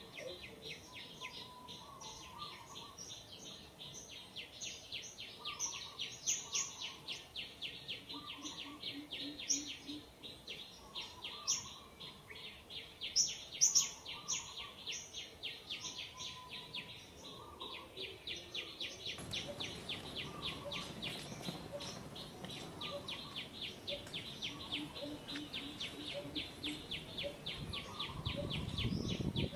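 Outdoor ambience of birds chirping and calling over a steady, rapid pulsing trill, about six pulses a second. A little past halfway, a faint background hiss gets louder.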